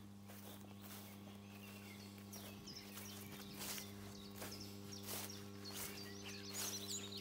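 Faint rural outdoor ambience: small birds chirping now and then, a few short rustles and steps, over a steady low hum.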